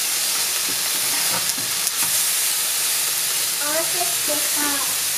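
Luderick (black bream) fillets sizzling steadily in a hot frying pan, freshly turned so the browned, marinated side faces up.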